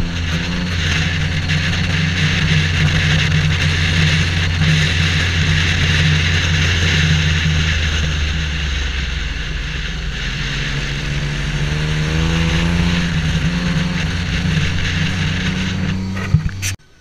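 Vehicle engine running steadily while driving, with wind and road noise rushing over the microphone. The engine note climbs as it speeds up about two-thirds of the way through, and the sound cuts off abruptly with a click near the end.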